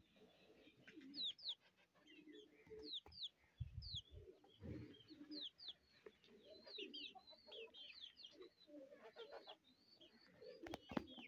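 Faint bird calls from a poultry yard: many short, high chirps that fall in pitch, with low cooing and clucking underneath. A soft low bump or two come about four seconds in.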